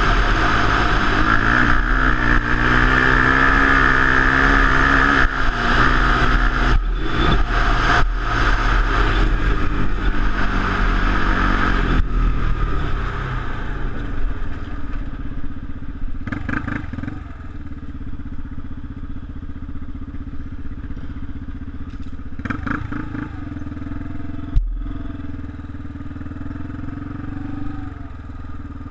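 Quad bike (ATV) engine running on a gravel track as heard from the rider's helmet, the revs rising and falling. It is loud and rough for the first dozen seconds, then lower and steadier, with a single sharp knock about twenty-five seconds in.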